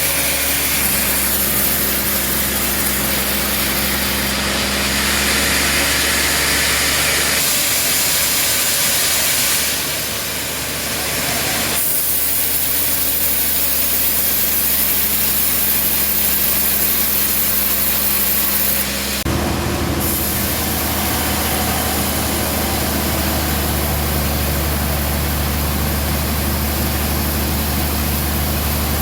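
Band sawmill running, its engine humming steadily under the hiss of the blade as it saws a trembesi log. The sound changes abruptly several times.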